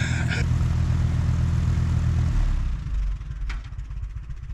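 Tractor engine running hard under load while pulling a cable to tip a large oak stump upright, then easing off to a lower, quieter run a little over two seconds in.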